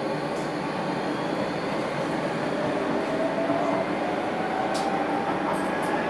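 A Docklands Light Railway B2007 Stock train running, heard from inside at the front of the car: a steady rumble and hiss of wheels on track, with a whine that rises in pitch from about halfway through.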